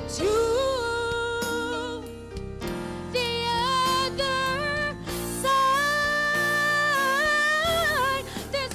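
A woman singing a gospel song into a microphone over instrumental accompaniment, holding long sustained notes, the longest near the end.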